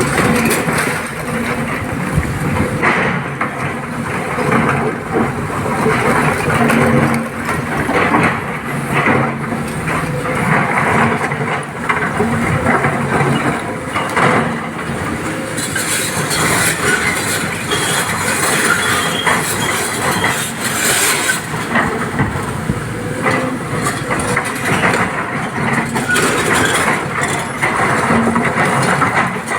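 Excavator's diesel engine working under load, with repeated clattering and knocking throughout, typical of stone being loaded into a dump truck. A brighter hiss joins about halfway through.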